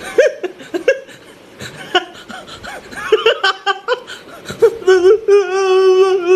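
A voice laughing and making short playful sounds, then holding a long wavering note from about two-thirds of the way in.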